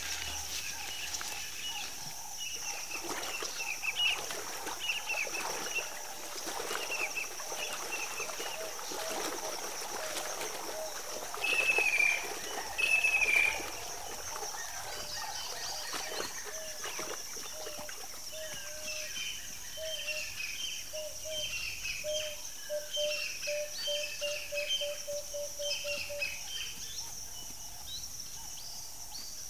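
Savanna bird chorus of short chirps over a steady high insect drone. Two louder descending calls come about 12 and 13 seconds in, and from about 18 seconds a low repeated note speeds up into a quick run before stopping.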